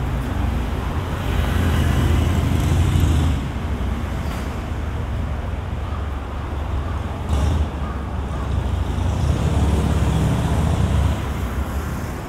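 Road traffic on a city street: cars and other vehicles passing, a steady low rumble that swells twice, about a second in and again toward the end.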